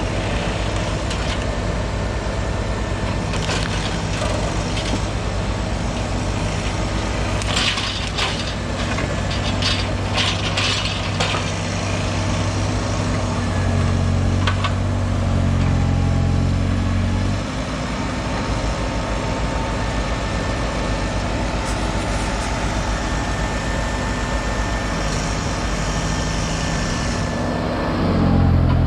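Heavy machinery's diesel engine running under load, working harder for a few seconds about halfway through and again at the end. Sharp cracking and snapping sounds come about a third of the way in.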